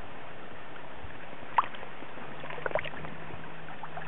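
Steady rush of flowing river water, with a few small splashes and trickles as a hand holds a brown trout in the shallows for release, one sharp splash about a second and a half in and a couple more near the three-second mark.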